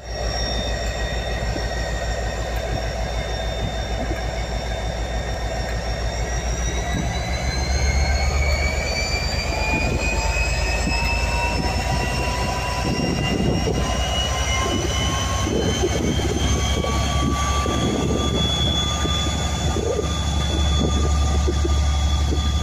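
Class 57 diesel-electric locomotive pulling away under power: a deep, steady engine drone with a high whine that rises in pitch from about six seconds in as it accelerates. From about halfway on, irregular knocks and clatter from the wheels of the departing train join it.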